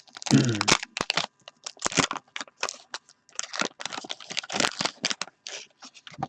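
Wax-paper trading-card pack being torn open and crinkled: a run of sharp crackling rips and rustles, loudest about half a second in.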